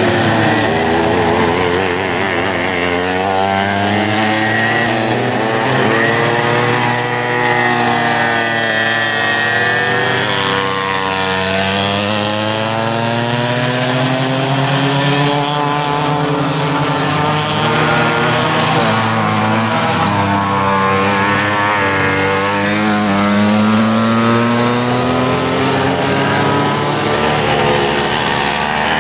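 Several vintage two-stroke kart engines racing at once, their pitch rising and falling over and over as the karts accelerate and back off for corners.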